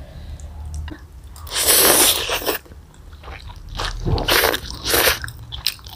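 Close-miked eating of noodles in spicy meatball soup: one long loud slurp about one and a half seconds in, then shorter slurps and chewing.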